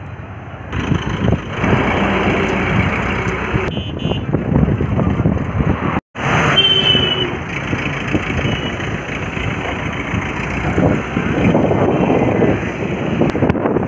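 Heavy truck engine and road traffic noise, a steady dense rumble, with the sound cutting out completely for a moment about six seconds in.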